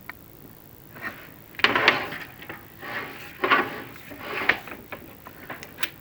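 Irregular scraping and knocking from a chimney inspection camera and its cable being fed down a masonry flue, in several uneven bursts starting about a second and a half in.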